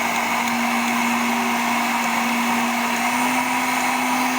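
Electric blender motor running steadily after repair, a steady whine whose pitch rises slightly about three seconds in; it now runs where before the repair it would not.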